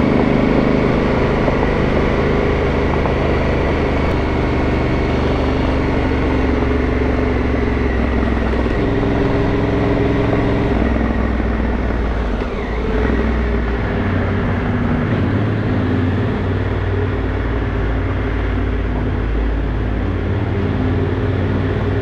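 Adventure motorcycle engine running steadily under way on a gravel road. About twelve seconds in, the engine note briefly drops and then picks up again.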